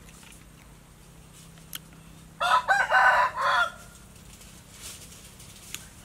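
A rooster crowing once, about two and a half seconds in, a loud call of several rising and falling syllables lasting just over a second.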